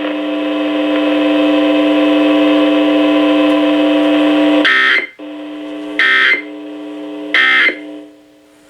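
Emergency Alert System test ending: a steady buzzing alert tone, then three short bursts of SAME end-of-message data tones about 1.4 s apart. The quieter buzz carries on between the bursts and fades out about 8 seconds in.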